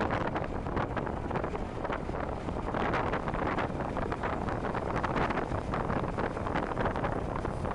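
Wind buffeting the microphone in a steady rush, over the noise of a moving vehicle.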